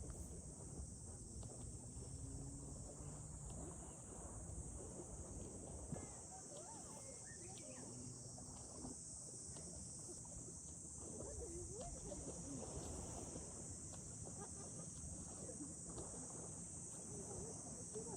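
Steady, high insect chorus droning without a break, with faint distant voices beneath.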